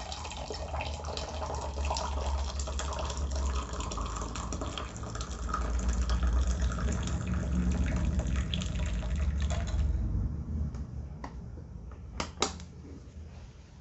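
Tea poured from a stainless-steel flask into a glass mug: a steady splashing fill for about ten seconds that then stops, followed by a few light clicks.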